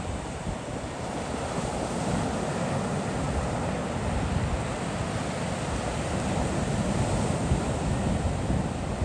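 Ocean surf washing onto the beach, a steady rushing wash that swells and eases, with wind buffeting the microphone.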